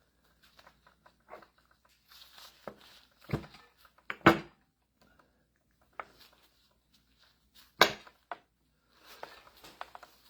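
Hydraulic pump parts being handled and fitted together by hand during reassembly: scattered knocks and clicks. The two loudest sharp knocks come about 4 and 8 seconds in.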